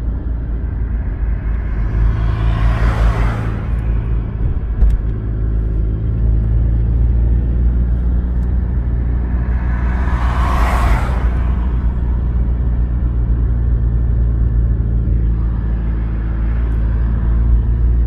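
Car engine and road noise heard from inside the cabin while driving, a steady low hum. Two louder whooshes of passing traffic come about three and eleven seconds in.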